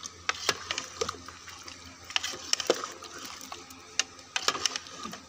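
A long metal ladle stirring meat and potatoes in an aluminium pot, clinking and scraping against the metal at irregular moments, over the steady sizzle of the curry being fried.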